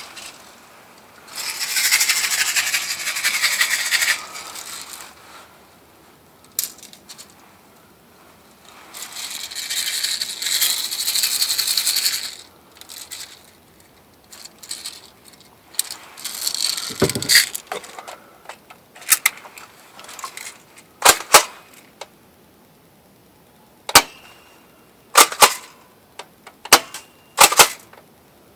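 Airsoft Mossberg M590 pump shotgun being reloaded, with rattling of shells and BBs in two long stretches, then firing a series of about ten sharp shots, spaced one to three seconds apart, in the second half.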